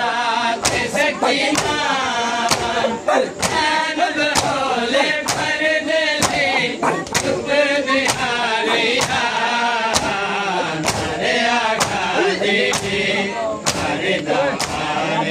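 Men's voices chanting a Shia lament (nauha) together, punctuated by sharp open-hand slaps of ritual chest-beating (matam), roughly one a second in a steady rhythm.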